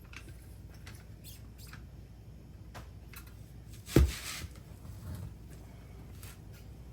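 Handling noise as a scissor jack and a UTV tire on its wheel are shifted to a new spot for bead breaking: scattered light clicks and scrapes, with one heavy thump about four seconds in.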